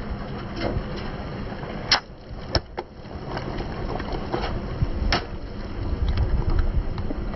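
Car tyre rolling over a toy egg filled with water beads: the egg gives way with a sharp snap about two seconds in, followed by a few smaller cracks as the beads spill and are crushed, with a steady low rumble of the rolling car underneath.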